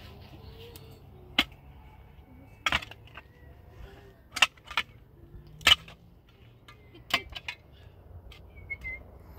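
A series of sharp knocks, about seven, coming at uneven intervals over a low steady rumble.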